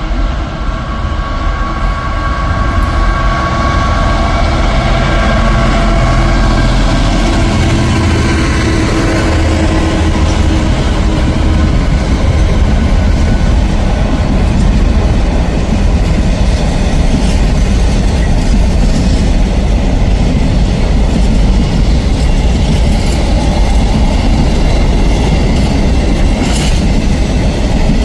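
A train running close by: a loud, steady rumble and rush with wheels clattering over the rail joints, building over the first few seconds. A set of steady pitched tones from the train fades out over the first dozen seconds.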